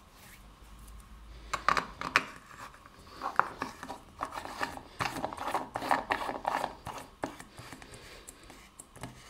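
Screw base of a small LED bulb scraping and clicking as it is twisted into a plastic E14 lamp holder: a run of irregular scratchy rubs and small clicks, thinning out near the end.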